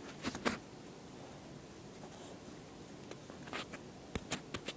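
A dog scuffling on a tile floor close to the microphone: a couple of scratchy rustles, a quiet stretch, then a cluster of sharp clicks and scrapes near the end.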